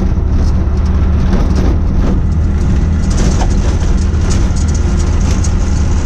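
Mototaxi's small motorcycle engine running steadily under way, heard from inside its cab as a low, even hum with scattered rattles.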